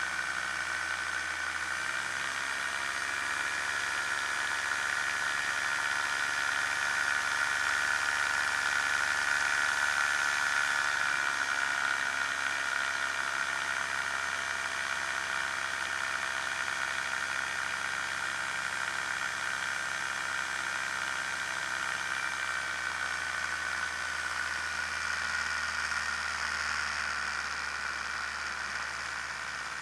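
Challenger II ultralight's pusher engine running steadily at power through takeoff from snow, heard from a wing-mounted camera with wind hiss over it; it grows a little louder over the first ten seconds and its pitch shifts slightly around then.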